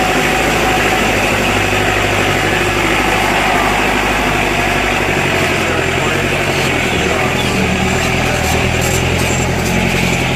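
Off-road 4×4 jeep engine running steadily over a constant rushing noise, its pitch shifting slightly about halfway through.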